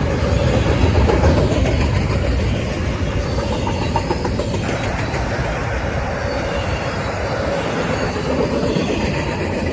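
Norfolk Southern freight train rolling past at close range, a steady loud rumble and clatter of wheels on the rails.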